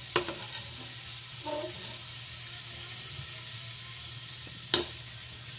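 Hot cooking oil sizzling steadily in a wok after the shrimp have been lifted out, with two sharp metal clacks, one just after the start and one near the end.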